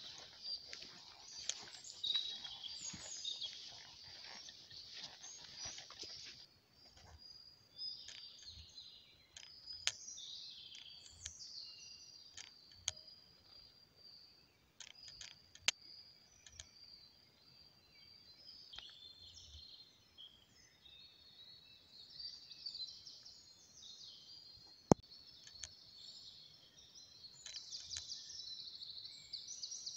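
Small birds chirping and singing, thickest at the start and end. Footsteps crunch through dry leaf litter over the first several seconds, and there is one sharp click about 25 seconds in.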